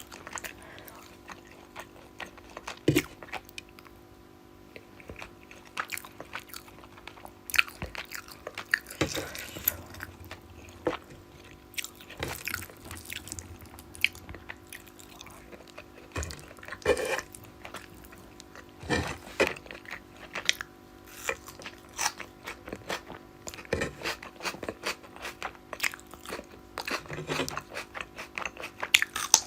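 Close-miked eating: chewing of rice and rohu fish curry, with irregular mouth smacks, clicks and crunches. A faint steady hum lies underneath.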